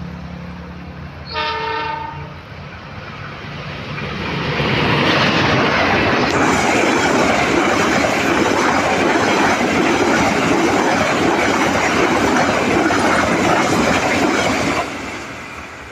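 Argo Bromo Anggrek express train passing through at speed: one short horn blast about a second in. Then the rumble and rail clatter of the passing carriages swells over a few seconds, stays loud, and drops off suddenly near the end as the last car goes by.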